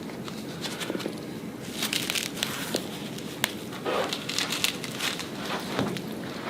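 Scattered sharp clicks and crackles, about a dozen, from hands-on chiropractic spinal work on a patient lying on a treatment table.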